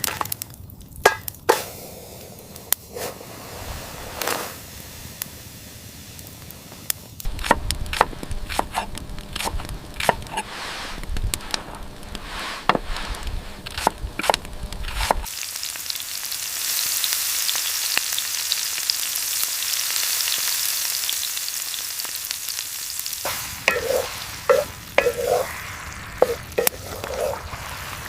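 Food frying in a pan, with the knocks and scrapes of a utensil stirring it; from about halfway through there is a steady, louder high sizzle for several seconds before the stirring knocks return.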